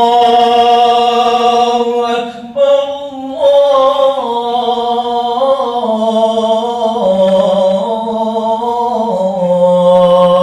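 A male muezzin chanting the adhan (Islamic call to prayer) in Arabic, one voice holding long, ornamented notes that step up and down in pitch, with short breaths between phrases.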